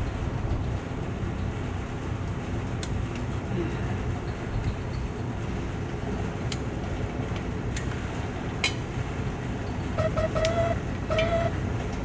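Caterpillar 6NZ (C15) diesel in a semi truck running steadily with a low rumble and a few sharp clicks. A pitched tone comes in and out in the last two seconds.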